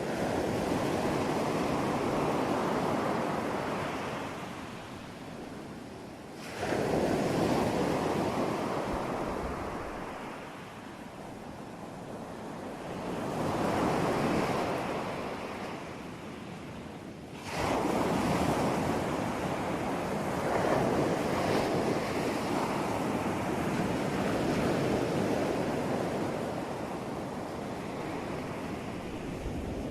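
Ocean surf: waves breaking and washing in, with no steady beat. A wave breaks right at the start, another about six seconds in, a smaller swell near the middle, and a bigger break a bit past halfway that runs on as a long wash, with quieter ebbs between.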